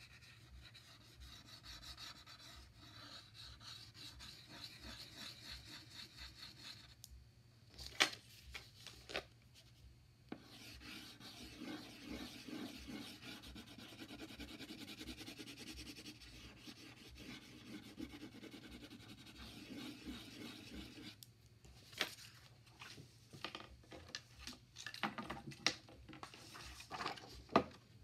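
Crayon scribbling back and forth on paper as a small circle is coloured in, in long stretches of steady scratchy rubbing. A few sharp clicks and paper rustles from handling the sheet break it up about eight seconds in and again near the end.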